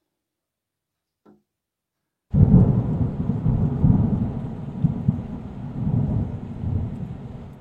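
Strong storm wind buffeting the microphone: a loud, gusting low rumble that starts abruptly a couple of seconds in and slowly eases off.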